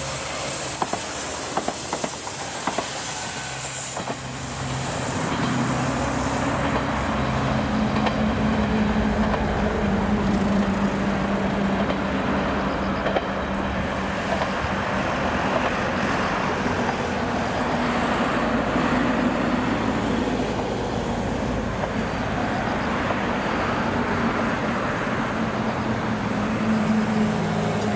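JNR KiHa 66/67 diesel railcar set passing, its wheels clicking over the rail joints for the first few seconds. Then a steady low drone carries on as the train draws away.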